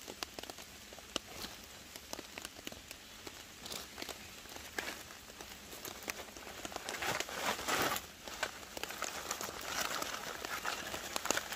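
A paper bag of barbecue charcoal crinkling and rustling as it is handled and pushed into a small metal stove, loudest about seven seconds in; in the last couple of seconds the lit bag burns with a crackle. Rain patters in the background with scattered ticks.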